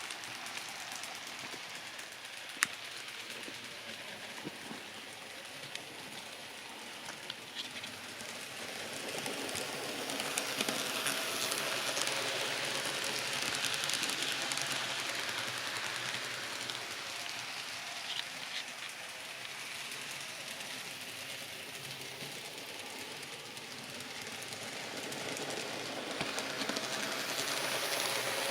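N scale Scaletrains SD40-3 model locomotive running on the track with a train of cars: a steady whir from the motor and gears, with scattered clicks of the wheels over the rail, one sharp click about three seconds in. It grows louder as the train passes close around the middle and again near the end. The gears are dry, not yet greased.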